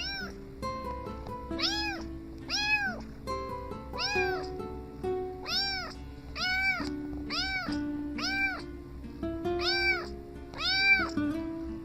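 A kitten meowing over and over, about ten high-pitched calls, each one rising and falling in pitch, over background music with a low steady beat.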